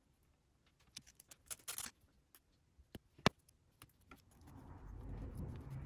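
Thin laser-cut plywood puzzle pieces being handled and fitted together: scattered small wooden clicks and a brief scrape about a second and a half in, then one sharp snap just after three seconds in as a piece is pressed into place. A soft rustle of handling follows near the end.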